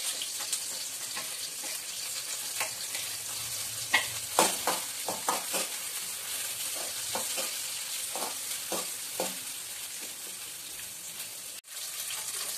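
Sliced onions and green chillies sizzling in oil in an aluminium kadai. A steel ladle knocks and scrapes against the pan in short clusters from about four seconds in, as the mixture is stirred.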